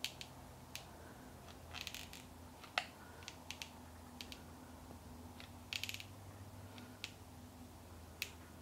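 Soft scattered clicks and two short runs of rapid ratcheting ticks from a hot glue gun's trigger feed as glue is run along an edge, over a low steady hum.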